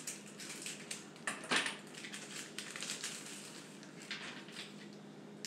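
Scissors snipping and a sheet of tiny hearts crinkling as one heart is cut out and handled, with a louder crinkle about a second and a half in.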